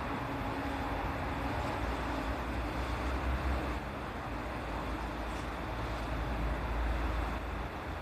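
A vehicle running steadily: a continuous low rumble with running noise, and a faint pitched hum that fades out about a second in.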